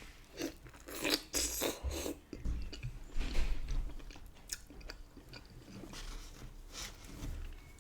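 A person chewing and biting into rotisserie chicken in butter sauce close to the microphone: irregular mouth sounds and smacks throughout.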